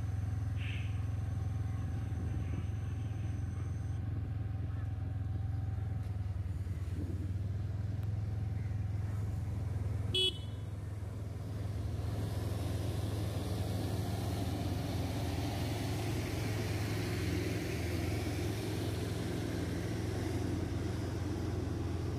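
Vehicle running with a steady low hum, with a brief horn toot about ten seconds in.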